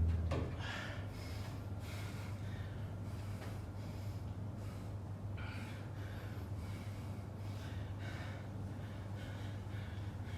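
A person breathing heavily, with repeated breaths about once or twice a second, over a steady low hum.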